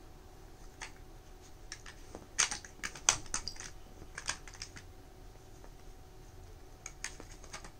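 Plastic dog puzzle feeder clicking and clattering in irregular flurries as its sliding covers and pieces are nosed and pushed about, loudest a little before the middle.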